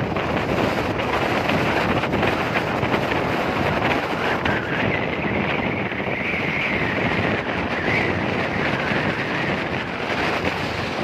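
Wind buffeting the microphone of a moving motorbike at highway speed, over the steady noise of the engine and tyres on the road.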